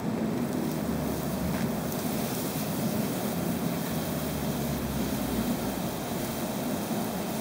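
Coal forge fire burning hard with its air blower running: a steady rushing noise of flame and forced air, with a low wind rumble on the microphone through the middle.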